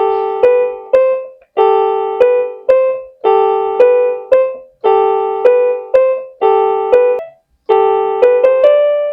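Piano playing a short phrase over and over: a held chord followed by two quick higher notes, repeated about six times, the last time ending in a short climbing run of notes.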